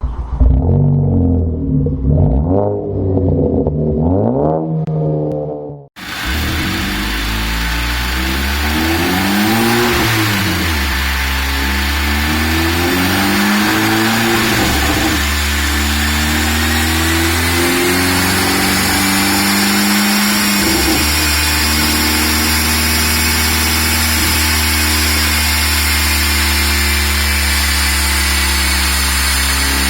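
Big-turbo Volkswagen Mk6 GTI's turbocharged four-cylinder revving in quick blips for about six seconds. After a cut the car runs under load with a steady rush of roller and fan noise on the dyno. Its revs rise and fall, then climb slowly through a long pull.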